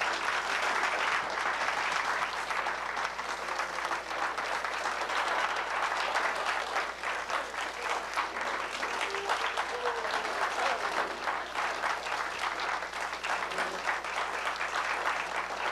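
Audience applauding with dense, steady clapping and a few faint voices underneath.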